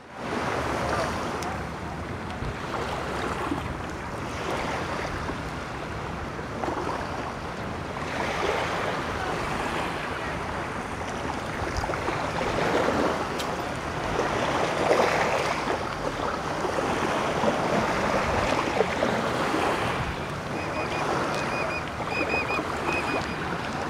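Gulf surf washing on the shore, a steady rush that swells and eases every few seconds, with some wind. Near the end a run of short, high chirps repeats a couple of times a second.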